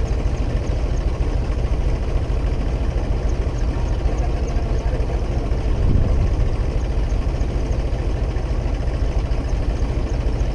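Tractor diesel engine running steadily under load, driving a centrifugal water pump, with a brief swell in loudness about six seconds in.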